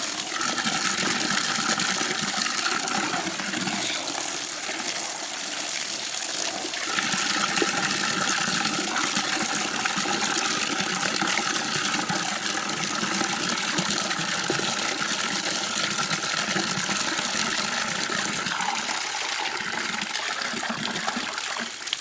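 Water from an outdoor standpipe tap pouring steadily into a plastic bucket of water, splashing as leafy greens are rinsed under the stream.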